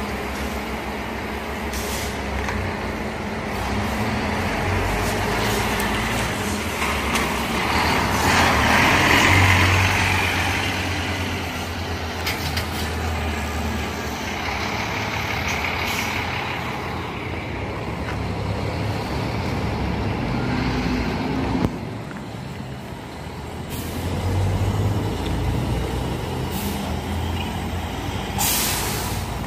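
Diesel coach bus engines running as the coaches manoeuvre, with hisses of air being let out of the air brakes. The loudest hiss comes about a third of the way in, a lesser one about halfway, and a short sharp one near the end.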